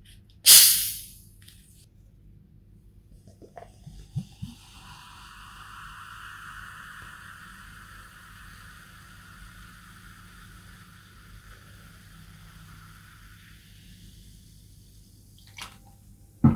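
A plastic Pepsi bottle is twisted open with a short, sharp hiss of escaping gas. After a few clinks, the cola is poured into a glass mug, fizzing and foaming for about ten seconds before fading as the foam settles. One sharp knock comes right at the end.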